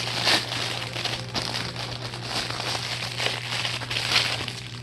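Packaging of a fidget toy crinkling and crackling as it is opened by hand, with louder crinkles about a third of a second in and again near the end.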